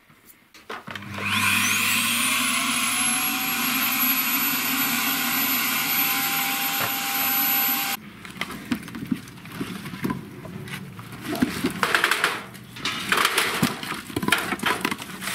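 Vacuum cleaner switched on about a second in: its motor whine rises in pitch and settles into a steady run, then cuts off abruptly about eight seconds in. After that come scattered knocks and clatter.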